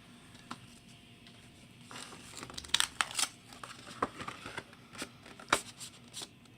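Plastic packaging crinkling and tearing as an item is unwrapped by hand, with scattered sharp clicks and rustles starting about two seconds in.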